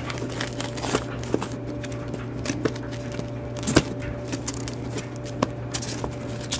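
Comic books in plastic bags and boards being flipped through by hand in a cardboard box: scattered light taps and plastic rustles, the loudest a little before four seconds in, over a steady low hum.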